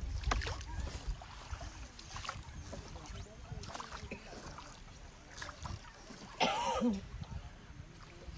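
Small rowboat under way: faint, irregular oar strokes and knocks in the water, with one brief louder pitched sound about six and a half seconds in.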